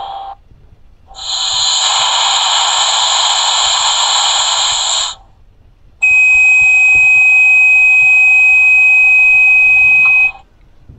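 Sound decoder of a Märklin BR 120 'Taigatrommel' model locomotive playing the Sifa (driver vigilance device) warning: a steady high-pitched warning tone held for about four seconds, cutting off suddenly. Before it, a separate rushing, hiss-like noise lasts about four seconds.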